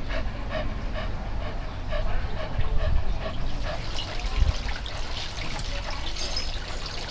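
Dog panting close to the microphone, quick rhythmic breaths about two or three a second for the first few seconds, over a low rumble on the microphone.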